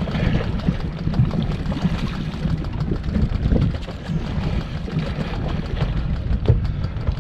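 Wind buffeting the microphone in a constant low rumble, with water moving against the boat.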